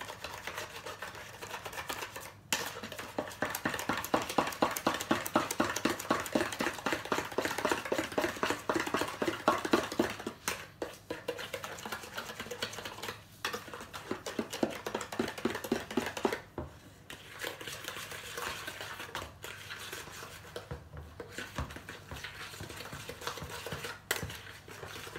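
Butter and sugar being creamed by hand in a plastic mixing bowl, a utensil scraping and slapping round the bowl in quick, even strokes with a few short pauses. This is the stage of working the mixture until the sugar dissolves and the lumps are gone.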